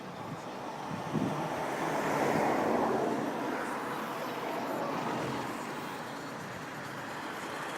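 Road traffic: a vehicle passing, its noise swelling to a peak about two to three seconds in, then easing to a steady traffic hum.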